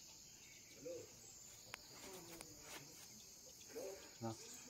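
Steady high-pitched drone of insects such as crickets, with a few faint, distant human voices.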